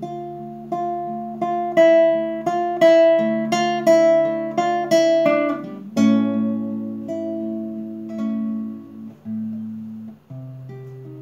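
Classical guitar played solo in a song's instrumental break: a picked melody of separate notes, loudest in the middle. About six seconds in comes a strong chord that is left to ring, and a new chord is struck near the end.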